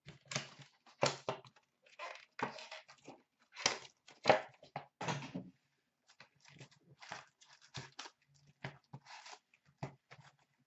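Cardboard hockey card hobby box being handled and opened by hand: irregular rustling, scraping and tearing of cardboard and wrapping in short bursts.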